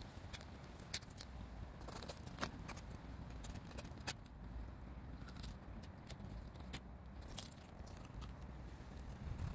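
Fillet knife cutting a scaled fish on a glass cutting board: irregular sharp clicks and scrapes as the blade works along the backbone and through the ribs and scales, over a faint low rumble.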